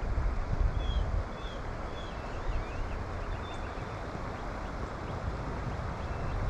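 Wind buffeting the microphone, a fluctuating low rumble over a steady outdoor hiss, with a few faint short high chirps in the first few seconds.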